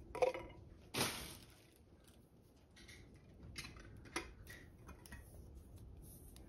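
Metal can clanking against a metal stew pot as kidney beans are tipped in, with one sharp clank about a second in, then a few fainter clicks of cans being handled.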